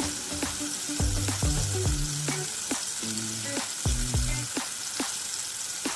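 Fish pan-frying in hot oil, sizzling steadily. Background music of short pitched notes plays over it.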